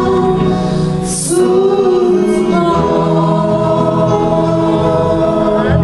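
A woman singing a slow Christian song into a microphone, holding long sustained notes over low bass-guitar accompaniment.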